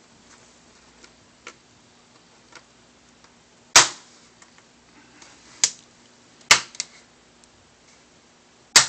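Plastic clips of an Asus K53Z laptop's screen bezel snapping loose as it is pried off by hand: about five sharp snaps spread over several seconds, with fainter clicks between.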